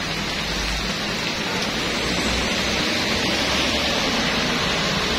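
Heavy rain pouring steadily onto a flooded road, an even hiss.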